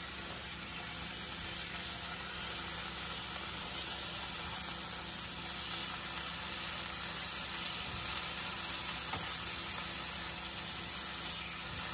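Thick steak sizzling in butter in a hot frying pan as it sears on its second side: a steady frying hiss that grows slightly louder about halfway through.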